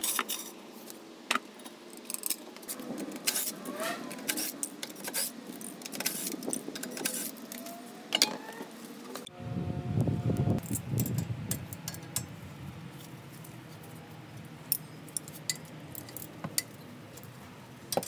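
Hand tools clicking and clinking on metal as a car's front brake is taken apart, with irregular sharp metallic clicks throughout. In the second half a socket on a ratcheting wrench works on a brake caliper slide bolt.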